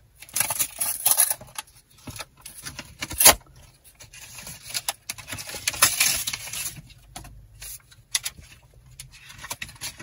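Paper envelope being torn open and the paper crinkled by hand, in two spells of tearing and rustling with a single sharp snap between them.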